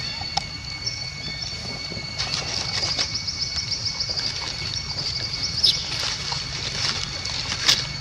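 Outdoor forest ambience: a steady high-pitched whine with rapid high chirping through the middle, and a few sharp clicks.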